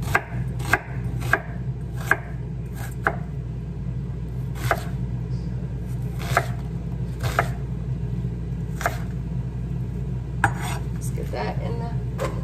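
Chef's knife chopping an onion on a wooden cutting board: single sharp knocks of the blade on the board, irregularly spaced about a second apart, with some scraping near the end. A steady low hum runs underneath.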